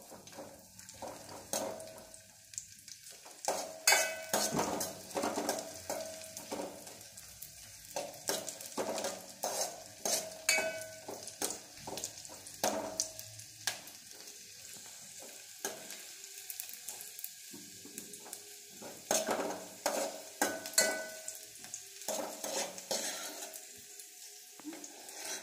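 Cashews and raisins frying in ghee in a metal pot with a faint sizzle, while a steel spoon stirs them, scraping and clinking against the pot again and again with short metallic rings.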